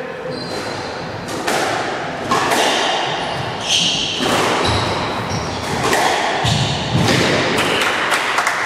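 Squash rally: the ball struck by rackets and slapping off the court walls in repeated sharp thuds, with short high squeaks of sneakers on the wooden floor.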